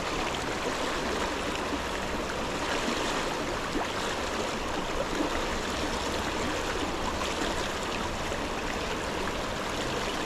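Mountain trout stream flowing steadily.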